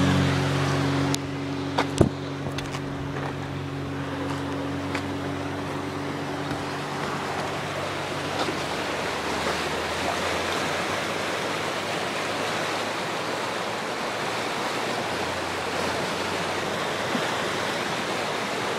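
Fast-flowing floodwater rushing steadily through a swollen channel. An engine hum fades away over the first few seconds, and there are two sharp knocks about two seconds in.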